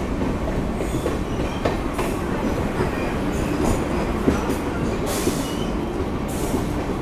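Passenger express train rolling into a station, wheels running on the rails in a steady rumble, heard from the open coach doorway. Two brief hisses come about five and six seconds in.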